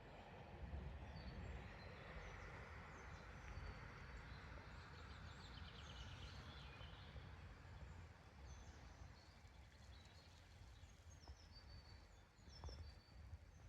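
Quiet outdoor ambience: small birds chirping and calling in scattered short notes over a low, steady rumble.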